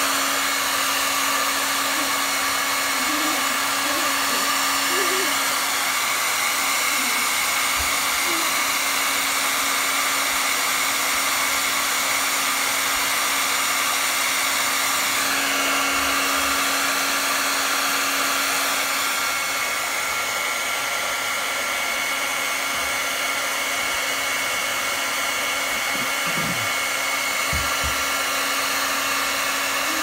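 Handheld electric hair dryer running continuously, a steady rush of blown air over a constant motor hum, its tone shifting slightly about halfway through.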